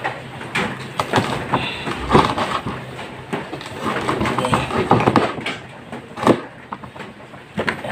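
Large kitchen knife cutting through grilled pork on a wooden cutting board, with irregular sharp knocks as the blade strikes the board; the loudest knock comes about six seconds in.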